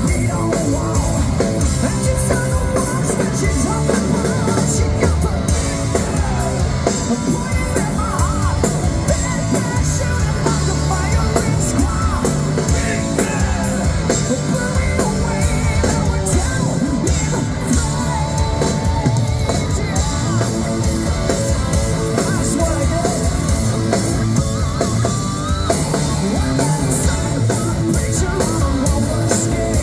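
Hard rock band playing live: drum kit and guitars with a singer yelling and singing over them, loud and unbroken.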